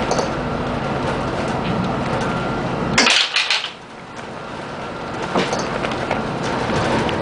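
Bus on the move, heard from inside: steady engine and road noise with light rattles of the body. About three seconds in comes a sudden loud hiss-like burst lasting under a second, after which the rumble falls away and slowly comes back.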